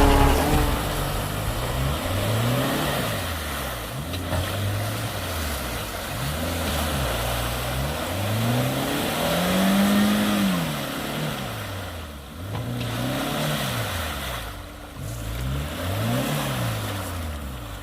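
Small off-road 4x4's engine revved up and down over and over, its pitch rising and falling every second or two, with one longer, higher rev about ten seconds in.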